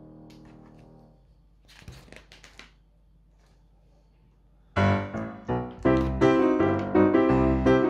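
Background piano music: held notes fade away in the first second, and a louder run of piano notes comes in about five seconds in. In the quiet gap, a few faint clicks of plastic Lego bricks being pressed together.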